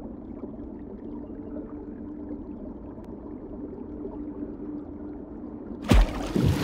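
Sound-designed underwater ambience: a muffled low rumble with a faint steady hum and light bubbling. About six seconds in, a sudden loud splash comes as a hand plunges into the water and grabs the pufferfish.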